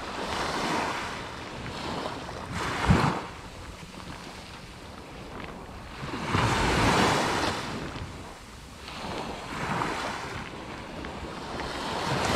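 Sea waves breaking and washing up the shore, the surf swelling and fading every few seconds, with wind on the microphone. A brief low thump about three seconds in is the loudest moment.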